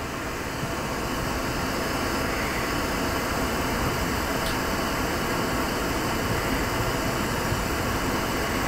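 Steady rushing noise of a glassworking torch burning with its flame turned up large to melt a big gather of glass.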